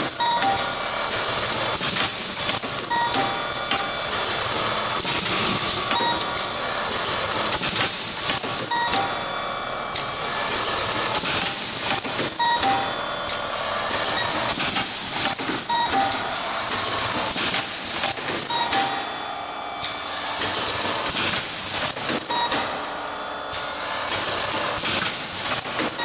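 Automatic connector assembly machine running: a steady high hiss, with clicks and short tones repeating in a machine cycle about every three seconds.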